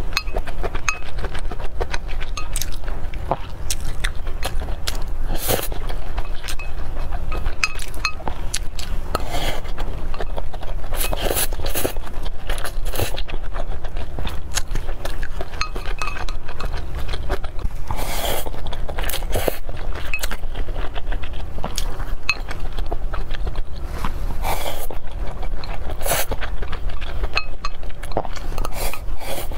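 Close-up eating sounds: wooden chopsticks clinking and scraping against a glass bowl, with slurping and chewing of noodles. Many short clicks and mouth noises through the stretch, over a steady low hum.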